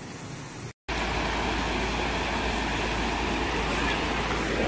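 Steady roar of rushing muddy floodwater with a deep rumble underneath, starting abruptly about a second in after a moment of silence; before it, a quieter hiss.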